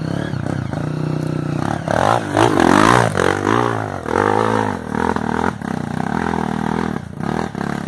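Dirt bike engine revving on a steep dirt trail, its pitch rising and falling with the throttle, loudest about two to three seconds in.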